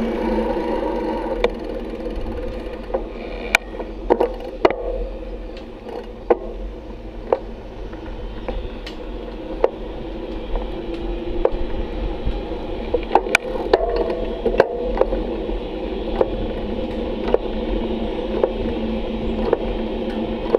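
Bicycle rolling on asphalt: a steady hum with irregular sharp clicks and rattles, some in quick clusters.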